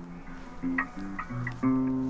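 Background music: a plucked acoustic guitar tune, its notes changing every fraction of a second.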